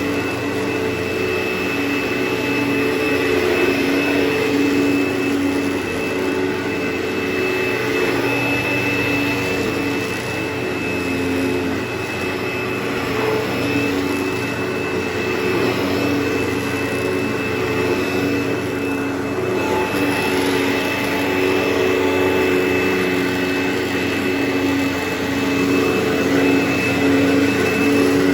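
Carpet-cleaning vacuum motor running steadily, a constant whining hum with a rush of suction over the carpet.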